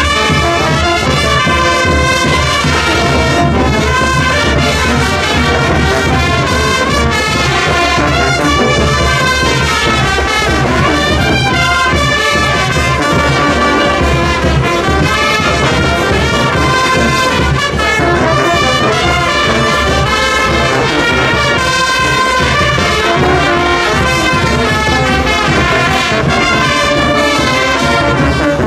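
Brass band with trumpets and trombones playing a marinera, loud and continuous.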